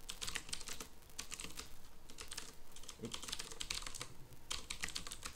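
Typing on a computer keyboard: quick runs of key clicks with brief pauses between them as a terminal command is entered.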